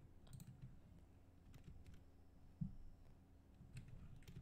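Near silence: room tone with a few faint computer mouse and keyboard clicks, and one soft thump about two and a half seconds in.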